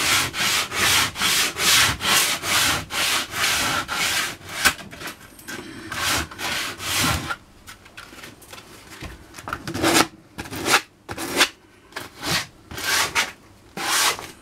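Coarse 60-grit sandpaper rubbed by hand back and forth on pallet wood, in quick, even scratchy strokes about two or three a second. A little past halfway it stops for about two seconds, then starts again in shorter, more spaced strokes.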